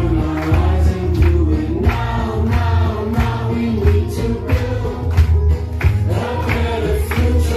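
A crowd singing together as a choir along to amplified music with a steady beat.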